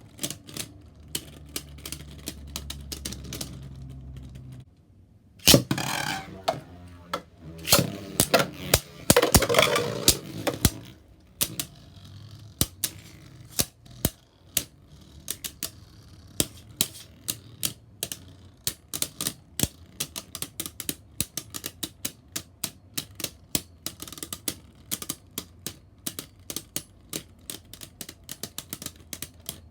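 Beyblade Burst spinning tops, Roar Balkesh and Harmony Pegasus, clashing: rapid irregular clicks and knocks. A dense, loud flurry of hits runs from about five and a half seconds in to about eleven, then the clicking goes on more sparsely.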